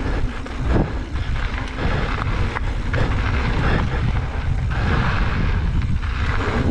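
Wind buffeting the microphone of a mountain bike riding down a trail, a steady heavy rumble with tyre noise and a few sharp knocks and rattles from the bike.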